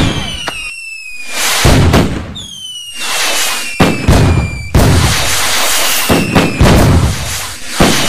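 Fireworks going off in quick succession: a run of loud bangs and booms about a second apart, with several long whistles falling slowly in pitch between them.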